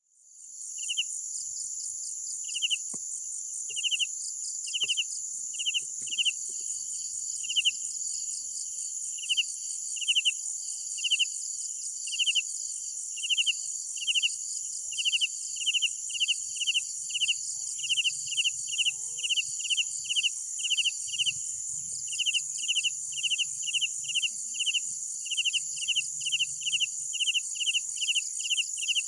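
Crickets chirping at night: a steady, high-pitched trill runs underneath, while a lower chirp repeats, about once a second at first and quickening to about two a second later on. The sound fades in at the start.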